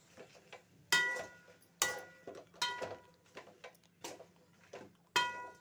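Metal spatula stirring cut broad beans in a metal kadai, knocking against the pan about once a second so that the pan rings briefly after each knock, with softer scraping and rustling of the beans in between.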